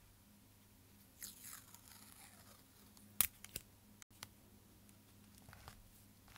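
Quiet handling of paper and craft materials on a tabletop: a crinkly, crunchy rustle about a second in, then a sharp tap and a couple of small clicks near the middle, with faint light taps later.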